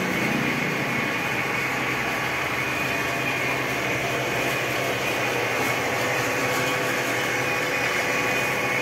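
Steady mechanical whir of workshop machinery running, with a thin high whine held throughout.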